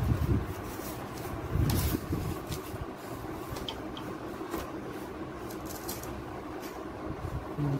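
Cardboard packaging rustling and scraping as a large mirror is handled and lifted out of it. There are dull bumps near the start and about two seconds in, over a steady low hum.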